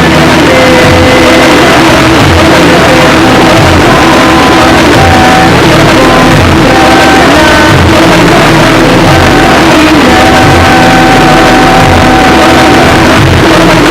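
Loud live music: long held melody notes over a steady low drone, with low bass notes recurring about once a second.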